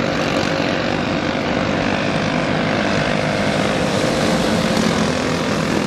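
Several dirt-track cage karts racing together, their small engines buzzing steadily at speed with no let-up.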